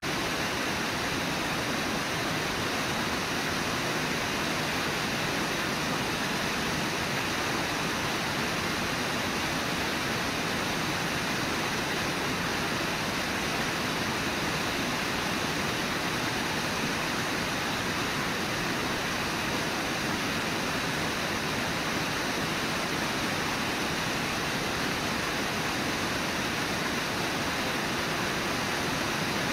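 Brooks River water rushing, a steady, even rush with no breaks.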